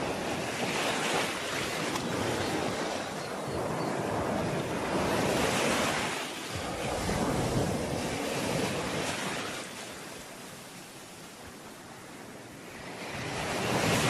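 Sea waves washing onto the shore in repeated surges of surf that swell and ease. The surf drops away for a couple of seconds about two-thirds of the way in, then builds again near the end.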